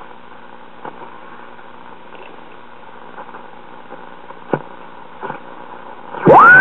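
Westinghouse WR209 tube radio's speaker giving steady static with a few faint crackles as the dial is tuned between stations, then about six seconds in a very loud squeal that shoots up in pitch and holds steady. This is the oscillation that fills its standard broadcast band, which the owner suspects may come from the weak oscillator section of its 6F7 tube.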